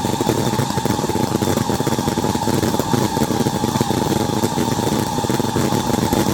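Fireworks crackling steadily: a dense, unbroken stream of rapid small pops.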